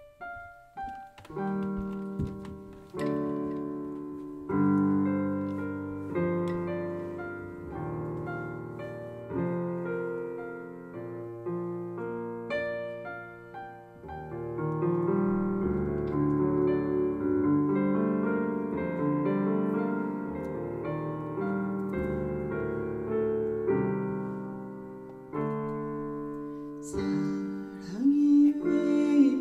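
Piano playing a slow introduction of broken chords and single notes, each note ringing on. Near the end a second melody line with a wavering pitch comes in over the piano.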